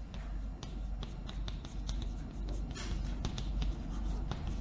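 Chalk writing Chinese characters on a blackboard: a run of short, irregular taps and clicks as each stroke lands, with a brief scratchy scrape about three seconds in.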